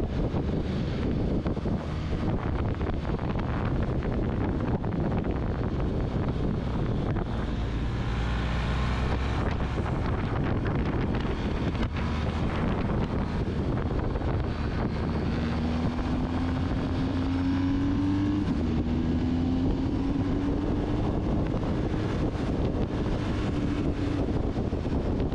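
Adventure motorcycle running at road speed, its engine under steady wind rush. About two-thirds of the way in, the engine note climbs, drops once, and climbs again.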